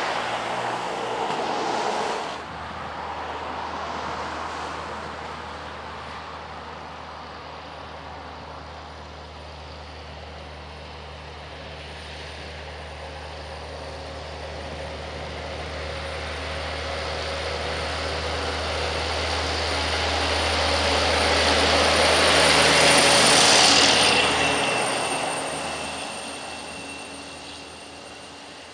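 A heavy truck's diesel engine pulling up a long grade, with a steady low drone and a high whine, growing louder for about twenty seconds as it approaches, passing close about 23 seconds in, then fading away. A car going past fades out in the first two seconds.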